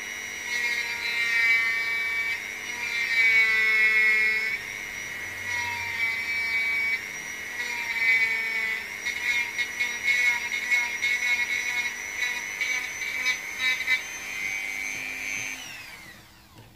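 Dremel rotary tool with a metal cutting bit running at high speed, grinding down cotton hardened with super glue on a vacuum head part. Its whine sags in pitch whenever the bit bears on the work, and it spins down near the end.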